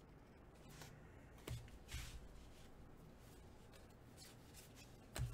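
Faint rustling of trading cards being handled and thumbed through by hand, a few soft brushes and slides, a little stronger about a second and a half in and again near the end.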